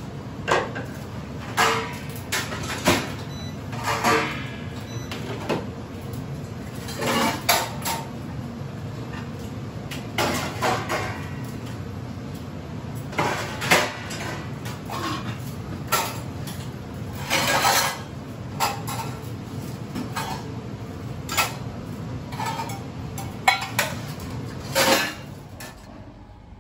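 Steel dishes and utensils clinking and clattering as they are put away into a wall-cabinet dish rack, with knocks of the cabinet door, a couple of dozen separate clatters over a steady low background noise.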